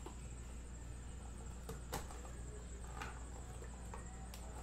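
Faint handling of a cardboard trading-card box being opened by hand: a few soft clicks and rustles, the clearest about two seconds in, over a steady electrical hum.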